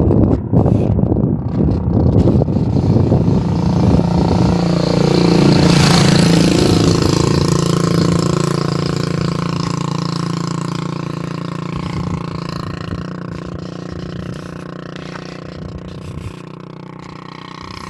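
A motor vehicle passing along the road: its engine grows louder, passes close about six seconds in with a rush of tyre noise, then fades slowly into the distance.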